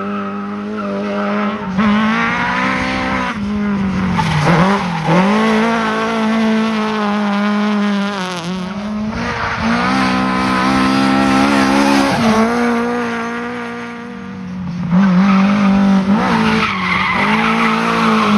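Rally Lada saloon cars' four-cylinder petrol engines driven hard: the engine note climbs and then drops abruptly again and again as the cars accelerate, change gear and brake for corners, with tyre noise as they slide on concrete.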